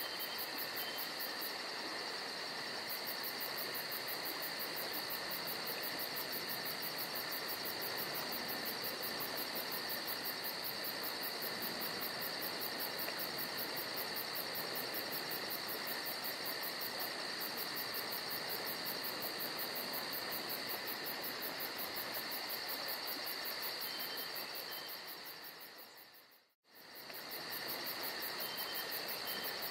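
Steady chorus of insects, several shrill trills overlapping without a break, one of them a very fast, high pulsing. Near the end the whole chorus fades out briefly to near silence and comes straight back.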